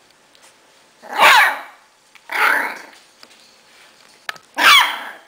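Bichon Frise barking three times, each a short, sharp bark that falls in pitch.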